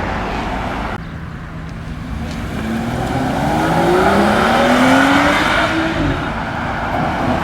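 A car accelerating hard as it leaves, its engine note climbing steadily in pitch, loudest about five seconds in, then fading away.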